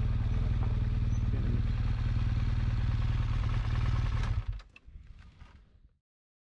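BMW R1200GS boxer-twin engine running steadily at low revs, then switched off about four and a half seconds in, with a few faint clicks as it dies away.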